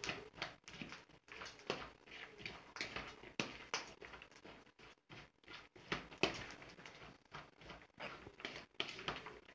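Sliced cucumbers being tossed with salt by hand in a plastic bowl: faint, irregular wet rustling and patter.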